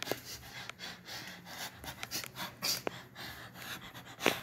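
A person breathing hard while moving about, with a few sharp knocks, the loudest near the end.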